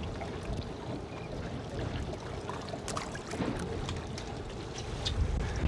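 Water trickling and splashing over a steady low rumble of wind and sea, with scattered small knocks and clicks.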